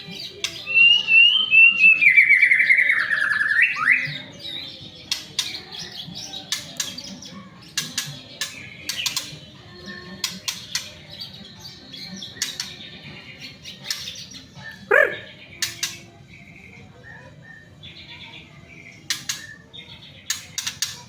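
White-rumped shama (murai batu) song: a loud warbled phrase falling in pitch in the first few seconds, followed by many sharp clicking notes and scattered short calls, with one quick downward-sweeping note about halfway through.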